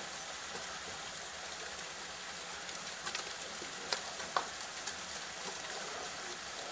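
Steady outdoor hiss with a handful of sharp clicks from about three seconds in, the loudest a little after four seconds: ice tools and crampons striking a frozen icefall.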